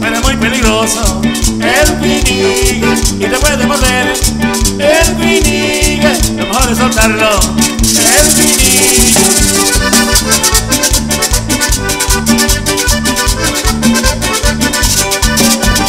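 Live cumbia band playing with a steady beat: accordion, electric guitar, bass, drums and a shaker-type rattle. A brighter hiss sits over the music for about two seconds halfway through.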